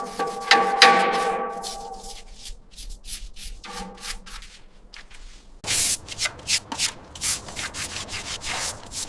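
Hand sanding or abrasive rubbing on an iron surface, in repeated short, irregular strokes that grow denser and louder a little past halfway. A brief ringing tone sounds under the first strokes and again about four seconds in.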